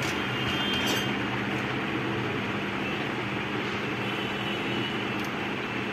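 Steady mechanical hum with an even rush of air, and a few light clicks from circuit-board and probe handling.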